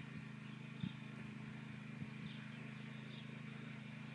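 Faint rural outdoor ambience: a steady low hum with a few faint, short high chirps and a soft knock about a second in.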